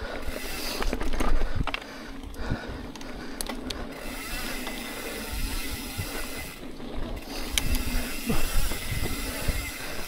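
Mountain bike rolling along a dirt trail, with wind buffeting the microphone and the bike rattling and clicking over bumps.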